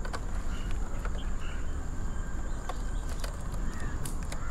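Light clicks and rustles of a bundle of electrical wires being handled, over a steady outdoor background with a couple of faint bird calls near the end.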